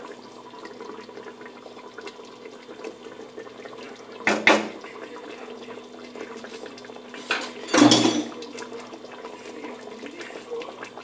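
Thick, reduced honey-sweet meat sauce simmering in a stainless steel pot, with light bubbling over a steady faint hum. Two brief louder clatters come about four and eight seconds in.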